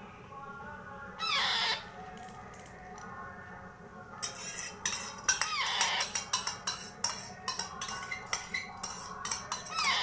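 Baby parrot chick begging for food: short squawks that slide down in pitch about a second in, again near the middle and at the end, and from about four seconds on a rapid run of wet clicks and smacks as it takes food from a spoon.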